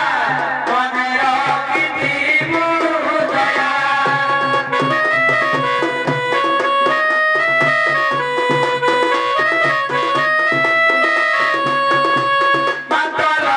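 Odia folk music: a singing voice over hand drums for the first few seconds, then an instrumental passage in which a melody instrument plays a line of short held notes, stepping up and down over the steady drum rhythm, before the voice returns near the end.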